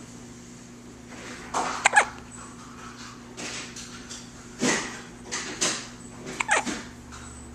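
Several short, sudden hiccups at irregular intervals, the loudest pair about two seconds in.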